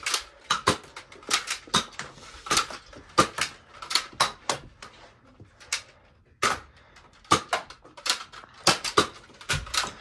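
Toy Nerf blasters firing over and over: an irregular series of about twenty sharp snaps, some in quick pairs, with a short lull about halfway through.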